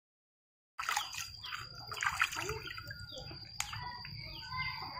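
Water splashing and trickling in a plastic basin as a pigeon is dipped and washed by hand, starting a moment in, with birds chirping around.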